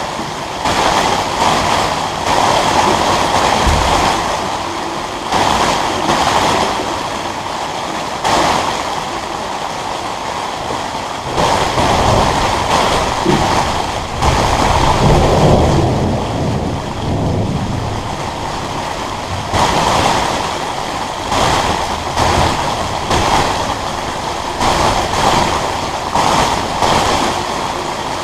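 Heavy rain on a metal shelter, a steady rushing noise that swells and eases in waves.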